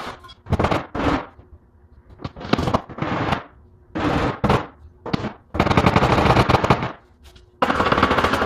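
Short bursts of fast rattling clatter, about seven of them with brief gaps between, the last starting near the end and carrying on.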